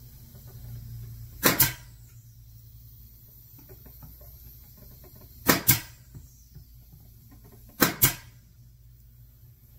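Three sharp double knocks on the wooden box, each a quick pair of strikes: one about a second and a half in, another about four seconds later, and the last about two seconds after that. They come as the box is being fastened together.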